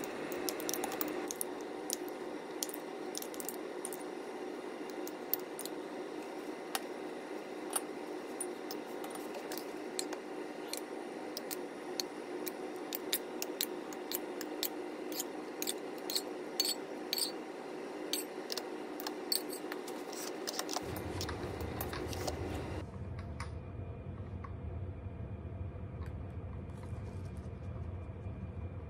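A metal spoon clinking and tapping against glass jars and a steel bowl, with many quick irregular clinks, as jelly is spooned into the jars. The clinks stop about three-quarters of the way through, leaving a low steady hum.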